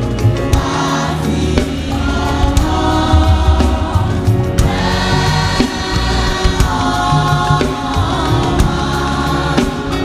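Church choir singing a Yoruba hymn in long held notes, over a band with a heavy bass line and drums.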